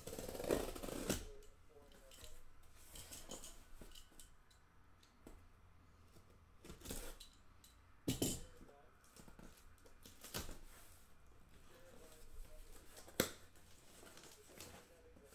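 Box cutter slicing through packing tape on a cardboard case, a scraping, tearing stretch in the first second or so. Then scattered rustles, scrapes and knocks as the cardboard case is handled and opened, with a sharp click near the end.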